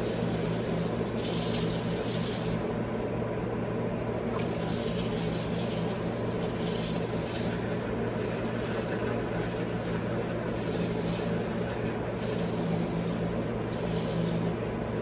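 Wood lathe motor running at a steady speed with a constant hum, while a rag rubs friction polish onto the spinning wooden mallet in intermittent hissing swishes.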